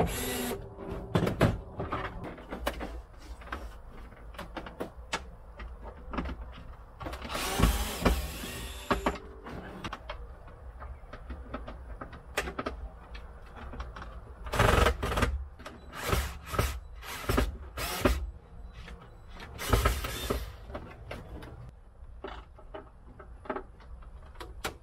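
Cordless screwdriver running in short bursts on a bolt, the longest about two seconds, among clicks and rattles of small metal and plastic parts being handled.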